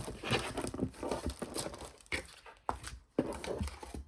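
Packaging being handled: irregular crinkling and rustling, with a few sharp knocks about two to three seconds in, as a box is lifted out of a parcel of craft supplies.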